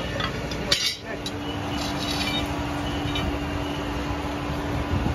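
A single sharp clink of steel, then from about a second in a steady machine hum with one constant tone, from the running workshop machinery by the forge.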